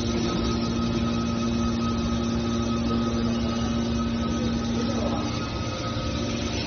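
Hydraulic scrap metal baler running: a steady hum from its motor and pump, with the main tone dropping away about five seconds in.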